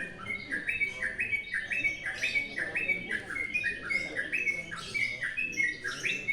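Yellow-vented bulbul (trucukan) singing: short, bubbling whistled phrases repeated about twice a second without a break.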